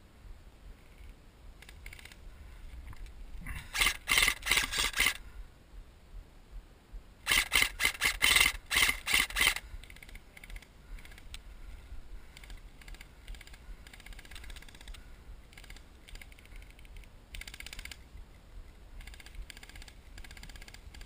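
Airsoft rifle firing two rapid bursts of sharp clicking shots, the first about four seconds in and lasting over a second, the second about seven seconds in and lasting about two seconds. Fainter, shorter bursts of shots follow further away.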